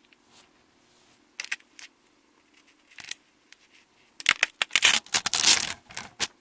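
Close-miked eating: a few sharp crunches, then a loud run of crisp crunching and chewing near the end.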